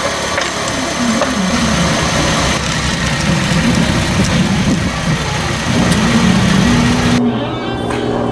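An engine running, its pitch wavering up and down. About seven seconds in the upper hiss drops away suddenly and a lower, steadier hum carries on.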